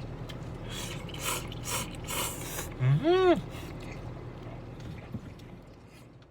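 An alarm clock going off: about four short buzzing rattles, then one brief tone that rises and falls in pitch, the loudest moment.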